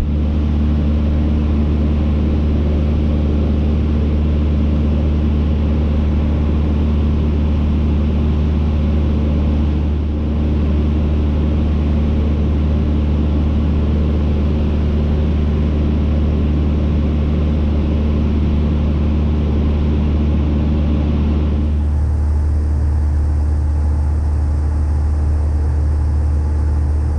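Cessna 152's four-cylinder Lycoming engine and propeller droning steadily in level cruise. About 22 seconds in, the hiss above it drops away and the drone sounds duller.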